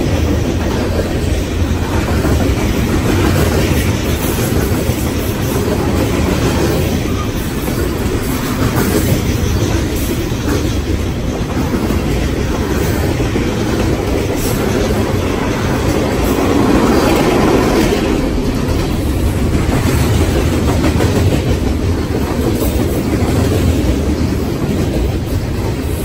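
Freight train's covered hoppers and tank cars rolling past, steel wheels on rail making a steady rumble.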